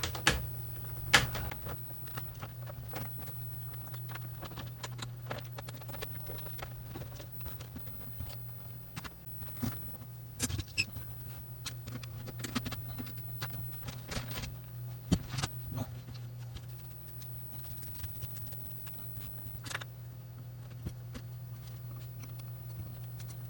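Scattered clicks and taps of a small screwdriver, screws and parts being handled while a PlayStation 5 console is taken apart, over a steady low hum.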